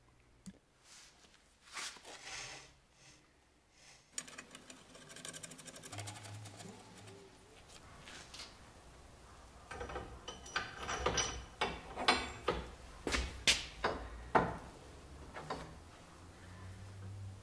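Clinks and knocks of iron brake-rod parts being handled and fitted onto a wagon's brake lever. It starts almost silent, turns to light rattling about four seconds in, and ends with a run of sharper metal knocks.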